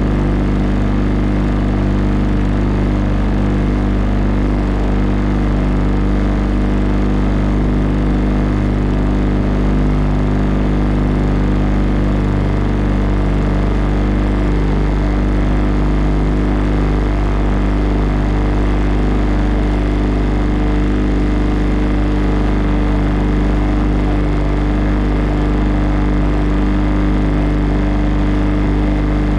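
Motorboat engine running at a steady speed, heard from aboard the boat, with a constant rush of water and wind over it.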